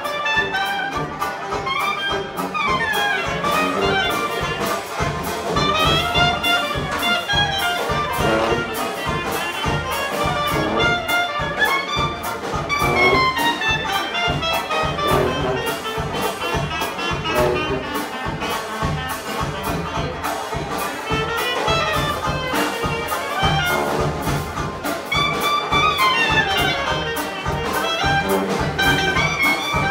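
Dixieland jazz band playing live: sousaphone, trumpet and clarinet weaving over a steady banjo and drum beat.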